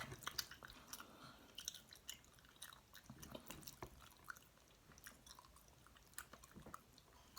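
Faint chewing close to the microphone: a person eating, with scattered soft mouth clicks and smacks.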